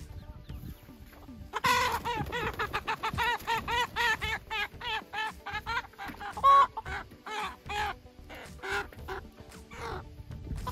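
Chicken squawking in a fast run of loud alarm calls, about four or five a second, starting about one and a half seconds in and thinning to scattered squawks near the end: a young hen's distress cries as she is chased and grabbed by hand.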